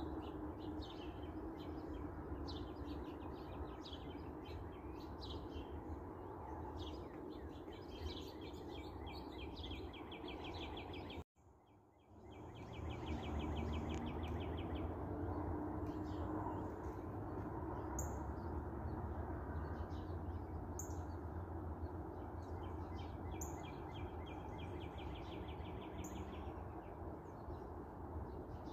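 Several small songbirds chirping, with rapid trills of quickly repeated notes, over a steady low background rumble. The sound drops out for about a second partway through.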